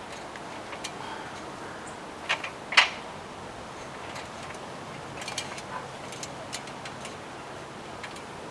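Scattered sharp clicks and knocks of an aluminium extension ladder being climbed, two louder knocks a little over two seconds in and a quicker cluster of lighter clicks about five seconds in.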